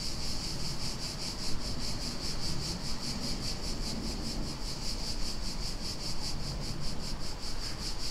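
Steady chorus of insects chirring, a high pulsing sound repeating evenly several times a second, over low background rumble.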